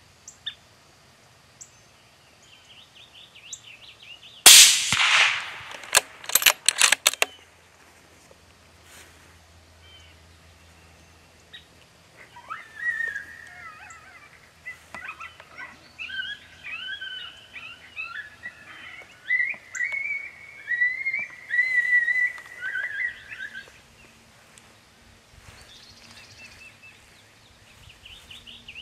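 Suppressed 22-250 rifle shot about four and a half seconds in, the loudest sound, followed by a few sharp clicks a second or two later. From about twelve seconds in, a run of high, gliding whistle-like calls goes on for about ten seconds.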